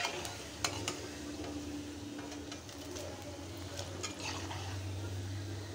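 Potato-cheese cutlets sizzling as they deep-fry in hot oil in an aluminium kadhai. A metal slotted spoon knocks and scrapes against the pan a few times in the first second, with a few lighter clicks later as the cutlets are turned and gathered to be lifted out.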